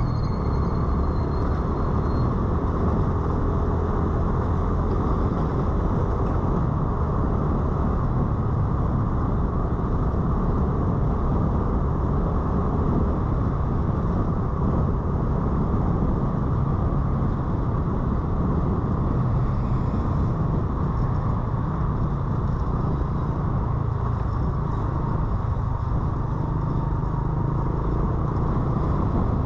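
Motorcycle riding through city traffic: the bike's engine running steadily under road and wind noise.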